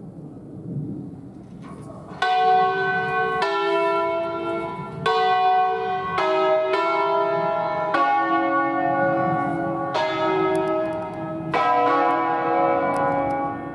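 Church bells of a five-bell Ambrosian-system ring cast by the Barigozzi foundry, swung full circle by rope and struck one after another. They start about two seconds in, with a stroke every one to two seconds and each bell's tone ringing on under the next.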